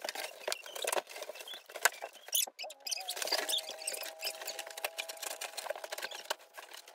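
Cardboard boxes being cut and handled: a fast stream of scratches, scrapes and clicks, with a squeaky held tone from about three seconds in to near the end.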